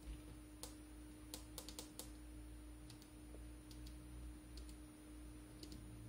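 Small tactile push buttons on a breadboard clicking faintly as they are pressed, about a dozen irregular clicks with a quick cluster near the two-second mark. A steady low hum and a thin high whine run underneath.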